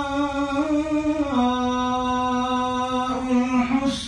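A man reciting the Quran in melodic tajweed style, holding one long drawn-out vowel (a madd) that steps down in pitch about a second in, with a short break just before the end.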